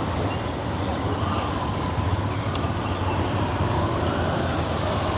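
Steady city street traffic noise: engines of passing vehicles with a continuous low rumble.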